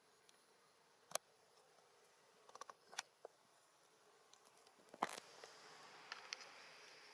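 Near silence broken by a few faint, sharp clicks and taps scattered through, loudest about five seconds in, over a light hiss that rises a little from then on.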